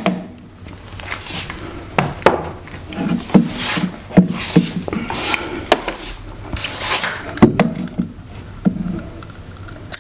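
Irregular knocks, taps and rubbing of hand work on a wall: hardware and a cordless drill being handled and fitted against drywall, with short scraping rushes between the knocks.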